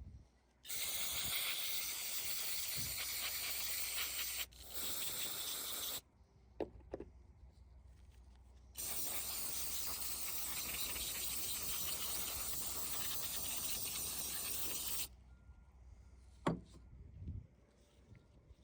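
Aerosol carburetor cleaner sprayed in three long hissing bursts, the last lasting about six seconds, to flush out a small lawnmower carburetor. A few light clicks come between and after the bursts.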